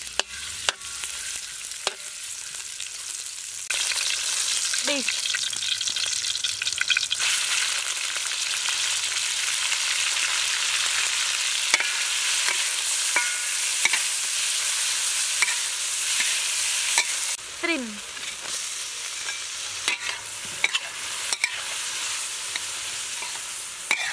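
Chopped garlic and green onion sizzling in hot oil in a steel wok, stirred with a metal ladle that scrapes and clicks against the pan. The sizzle gets louder a few seconds in as sliced beef is added, and the stir-frying goes on steadily.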